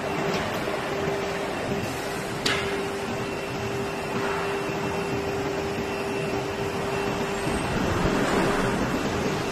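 Woodworking factory machinery running: a steady mechanical hum with a constant mid-pitched whine, and one sharp click about two and a half seconds in.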